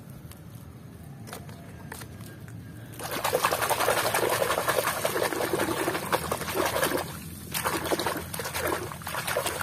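Muddy water splashing and sloshing as a hand swishes and scrubs a small plastic toy forklift through it to wash off the mud. It starts about three seconds in and breaks off briefly two-thirds of the way through.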